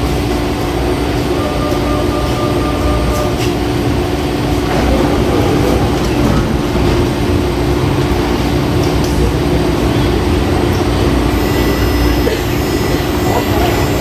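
CPTM series 2000 electric train standing at an underground platform with its doors open, its onboard equipment giving a steady hum of two low tones under station noise.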